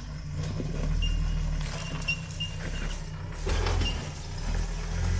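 A 4x4's engine running at low revs, a steady low rumble, with a few knocks and clunks about two and three and a half seconds in.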